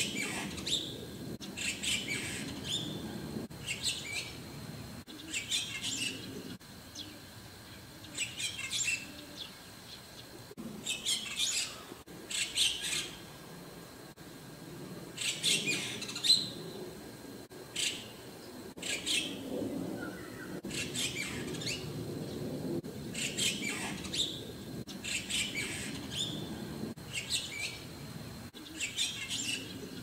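White-cheeked starling calls: short, scratchy bursts of chirps repeated every one to two seconds, over a faint low background rumble.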